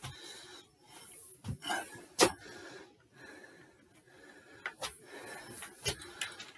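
Footsteps thudding on a wooden staircase during a stair workout: several separate thuds, the loudest about two seconds in, with hard, wheezy breathing between them.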